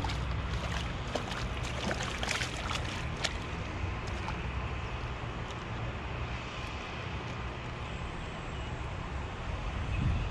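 A hooked river fish thrashing and splashing at the water's surface, a quick run of splashes in the first three seconds or so, over a steady low rumble.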